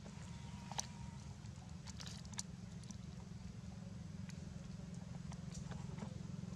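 Faint scattered clicks and crackles over a steady low rumble.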